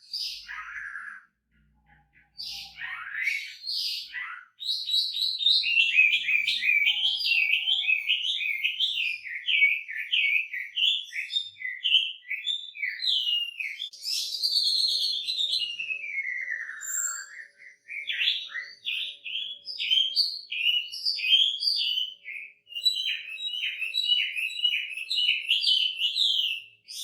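Chinese hwamei singing a long, rapid song of varied slurred whistles and trills packed with mimicked fill-in phrases. It opens with a few separate whistled notes, then runs almost without a break, with one long falling slur about halfway through.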